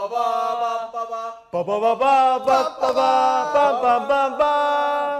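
A man's voice making wordless sung vocal sounds: one long held note, then after a short break more held notes that slide up and down and waver.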